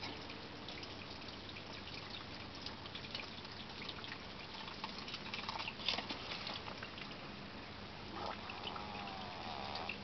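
Water trickling and splashing from a garden hose nozzle onto a soil grow bag, with many small drips. There is a cluster of louder splashes and knocks about six seconds in.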